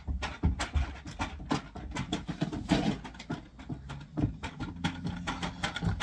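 Irregular clicks and knocks of small plastic makeup containers being rummaged through and picked up from a table.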